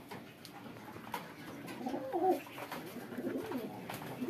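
Domestic pigeons cooing: low, wavering coos about two seconds in and again near the end, over scattered faint short clicks.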